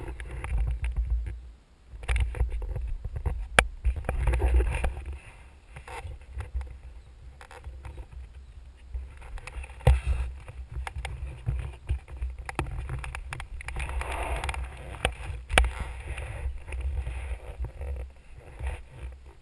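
Handling noise from a helmet-mounted camera as the helmet is picked up, turned over and put on: rubbing and rustling over uneven low rumbling, broken by several sharp knocks.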